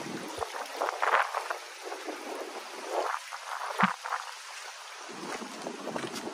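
Water splashing and trickling over a steady hiss, swelling louder in uneven gusts a few times.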